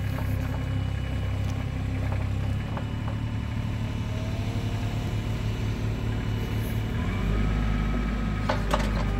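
IHI 28J mini excavator's diesel engine running steadily, its low note shifting about seven seconds in as the machine is worked, with a couple of sharp metallic knocks near the end.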